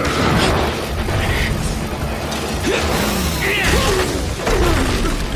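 Chainsaw sound effects: chainsaws revving and buzzing, rising and falling in pitch, over a music score.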